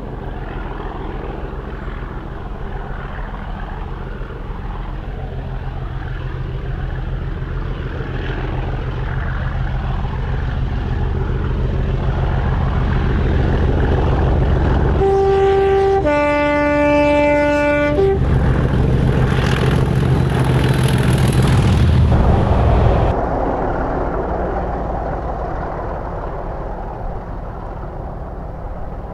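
English Electric Class 37 diesel locomotive working hard up a long climb with a heavy train, its V12 engine growing louder as it approaches. About fifteen seconds in it sounds its two-tone horn, a short high note then a longer low note. The engine sound fades as it passes.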